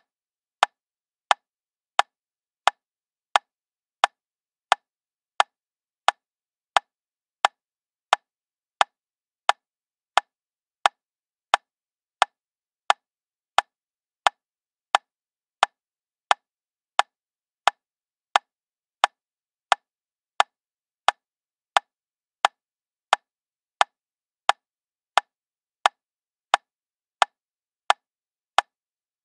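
Metronome ticking steadily at 88 beats per minute: a lone sharp click about every two-thirds of a second, with nothing else sounding.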